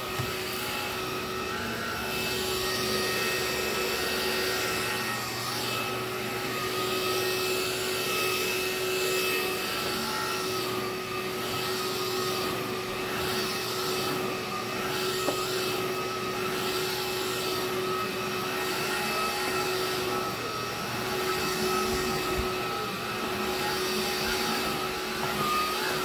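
Black & Decker 20-volt cordless stick vacuum running steadily with a high motor whine. Its brush head is pushed back and forth over carpet, and the sound swells and dips slightly with the strokes.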